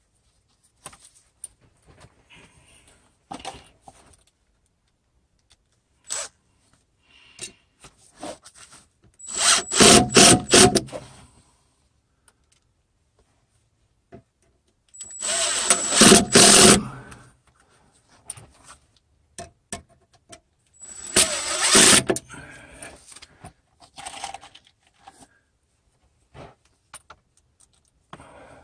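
Cordless power driver running three times, each for about two seconds, driving 3-inch construction screws through a metal L-bracket joist clip into a wooden floor post. Small clicks and handling knocks come in between.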